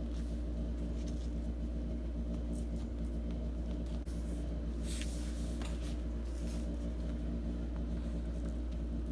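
A steady low hum from a running machine or mains hum fills the background without change. Over it, a few faint brief rustles of vinyl being smoothed down by hand onto a glued door panel, the clearest about five seconds in.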